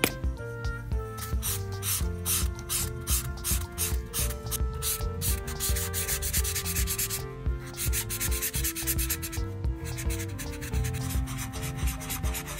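Red felt-tip marker rubbing back and forth on paper in quick scribbling strokes, several a second, with a couple of brief pauses, over background music.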